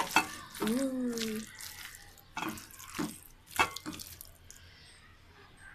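Wet squelching of a bare hand squeezing and mixing mashed cauliflower and raw egg, in several irregular squishes that thin out near the end. A brief hummed, voice-like tone sounds about a second in.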